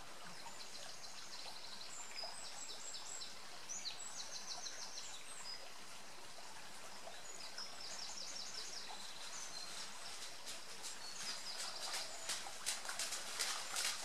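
Small songbirds singing trills of quick repeated high notes over a steady outdoor hiss. About eleven seconds in, the quick footfalls of a runner on the road start to come in and grow louder.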